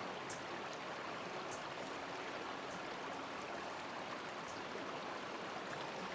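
Shallow brook running over stones: a steady, even rush of flowing water.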